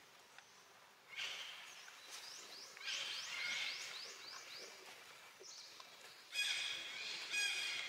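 Birds calling: a quick run of short sliding chirps a few seconds in, then, near the end, loud harsh calls repeating about once a second, typical of crows cawing.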